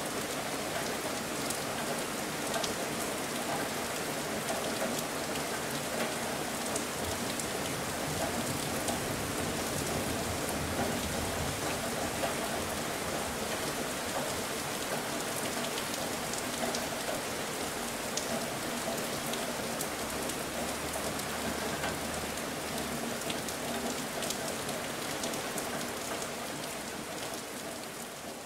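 Steady rain falling, a dense even hiss with scattered drop ticks, fading out near the end.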